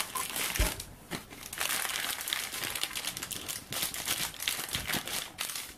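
Baking paper crinkling and rustling as hands pull and smooth it on a baking tray, with a dull low bump about half a second in.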